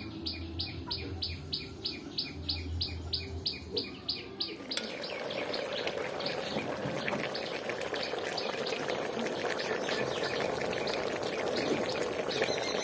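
A bird chirps in an even series, about four high chirps a second. About five seconds in this gives way to a steady bubbling hiss with small crackles: beef curry cooking in an open pot on a clay stove.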